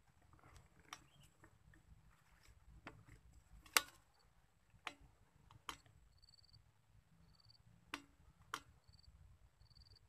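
Scattered sharp clicks from handling the camera and rifle scope over quiet outdoor background noise. From about six seconds in, a short high chirp repeats roughly once a second.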